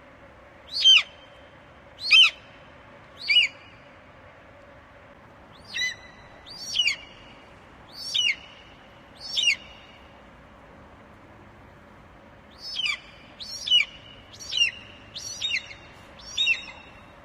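An eagle calling: a series of short, high-pitched calls, each falling in pitch, about a dozen in all, coming in three bunches of four or five.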